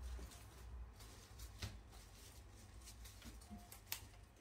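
Near silence: low room tone, with a couple of faint clicks.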